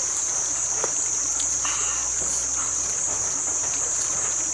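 Insects in the surrounding vegetation keep up a steady, high-pitched drone.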